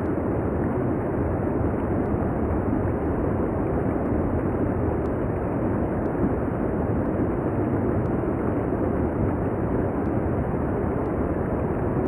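Steady rush of a waterfall, water pouring and sheeting over rock, an even, unbroken noise.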